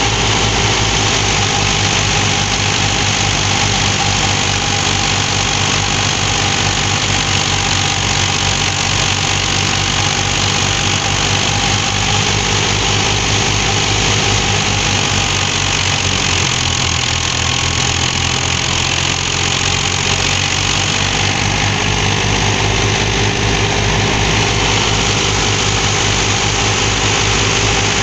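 Ghazi 480 tractor's engine running steadily under load as it drives a PTO wheat thresher being fed with wheat straw. The thresher adds a steady rushing noise over the engine's low beat.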